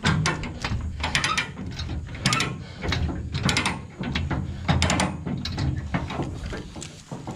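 Ratchet chain binder being cranked, its pawl clicking in quick bursts, one burst with each stroke of the handle, about once a second. The binder is tightening a chain to pull the bush hog's bent deck back level.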